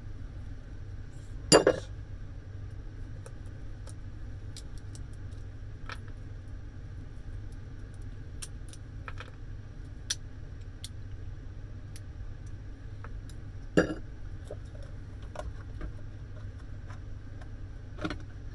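Parts of a garden shredder being taken apart, clinking and clicking as they are handled, with three sharp knocks: the loudest about a second and a half in, another about three quarters through and one near the end. A steady low hum lies under it.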